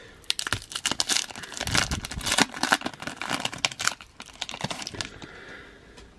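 Trading card pack wrapper being torn open and crinkled, a dense crackling that dies away about five seconds in.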